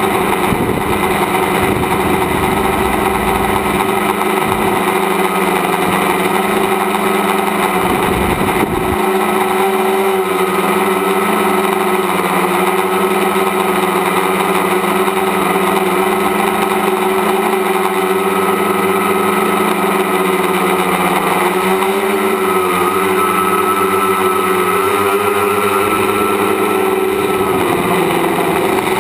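Tricopter's three electric motors and propellers buzzing steadily, heard from its onboard camera, with the pitch wavering slightly as the throttle changes. A low rumble runs under it for about the first nine seconds.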